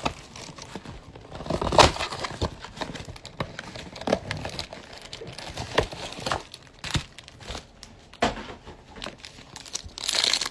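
Cardboard trading-card box opened and the foil-wrapped card packs inside handled, crinkling and rustling in irregular bursts. A louder crinkle near the end as a foil pack wrapper is torn open.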